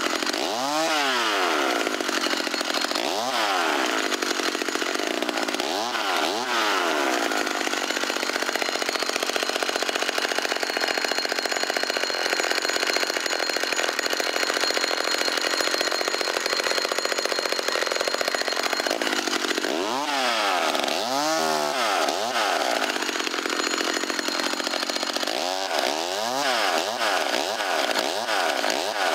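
McCulloch Mini Mac 35, a small 33 cc two-stroke chainsaw, revving up and down in quick rises and falls as the throttle is worked, then held at steady high speed for about ten seconds in the middle while it cuts kindling, before more revving up and down near the end.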